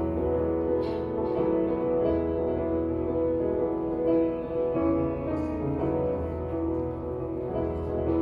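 Instrumental music led by piano: held chords over a low bass that changes every couple of seconds, the accompaniment's introduction to a church choir anthem before the voices come in.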